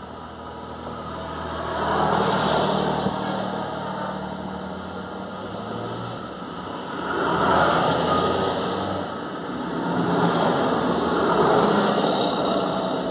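Farm tractors driving past one after another, their diesel engines swelling and fading in turn about three times, with tyre hiss on the wet road.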